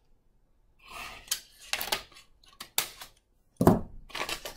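Plastic shrink-wrap being crinkled and torn off a packaged book-and-cassette set, in a series of irregular crackles after a brief quiet start. A louder thump comes a little under four seconds in.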